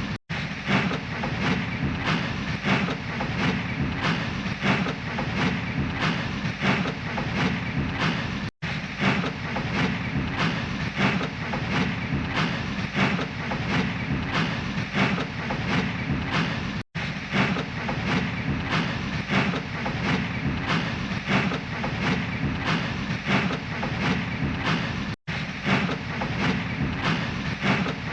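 Slow steam-train puffing sound effect: steady, evenly spaced chuffs, repeating as a loop that cuts out for an instant about every eight seconds.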